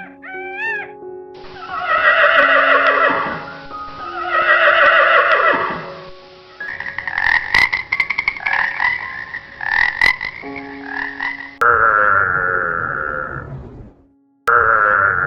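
Animal calls over soft background music: two long falling calls, then a fast pulsing series, then two matching rough calls with a short break between them.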